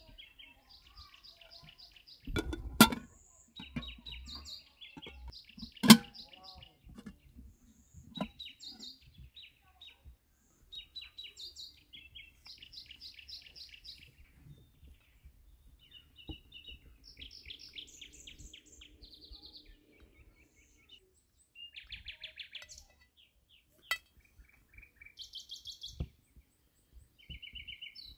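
Small songbirds chirping and singing in short, quick trills, with two sharp knocks about three and six seconds in.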